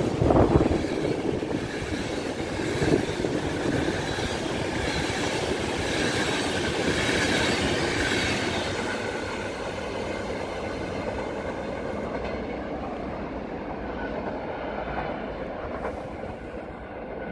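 Passenger coaches of a Czech Railways train rolling past on the rails, with wheels clicking over the rail joints and a faint high wheel squeal around the middle. The sound slowly fades as the train draws away.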